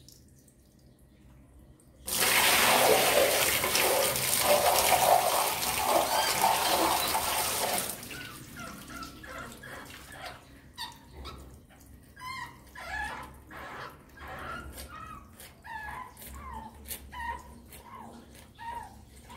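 A loud, steady rushing noise starts about two seconds in and cuts off about six seconds later. Then a rat caught in a wire cage trap squeaks over and over: short, high chirps that rise and fall, several a second.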